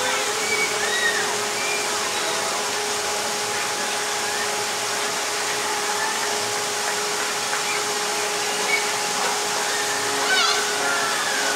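Steady rush of water pouring from a ProSlide bowl slide's exit flume into its splash pool, with a steady low hum underneath. Faint distant voices, and a brief higher-pitched shout about ten seconds in.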